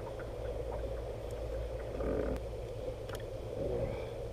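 Steady low background rumble of open-air ambience, with a few faint clicks and a brief faint hum about two seconds in.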